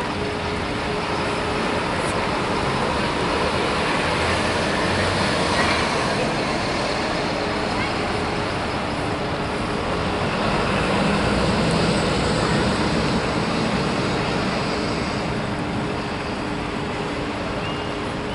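Single-deck diesel buses pulling past at low speed: engine running and tyre noise over steady town traffic, with a steady low hum underneath. The noise swells a little as each bus passes.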